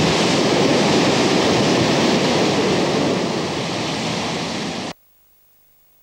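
Surf and breaking waves, a steady rushing noise that eases slightly and then cuts off abruptly about five seconds in, leaving near silence.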